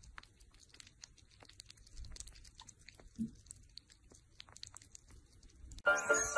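Sugar gliders licking and lapping at food in a small plastic cup: quiet, scattered wet clicks and smacks, with one short, louder low sound about three seconds in. Music comes in near the end.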